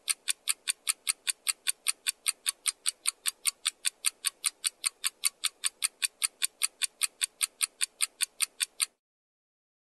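Clock ticking sound effect used as a task timer, with crisp, even ticks at about four a second that stop abruptly about nine seconds in.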